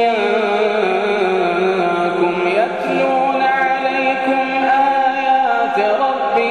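A male Quran reciter chanting in the Iraqi maqam, holding one long ornamented vowel without words: the melody steps down over the first two seconds, then climbs and turns through several held notes.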